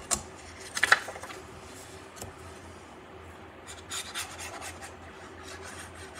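Paper handled with a sharp crackle about a second in, then, from just past the middle, the tip of a liquid glue bottle rubbed back and forth across the back of a sheet of patterned paper in short, scratchy strokes.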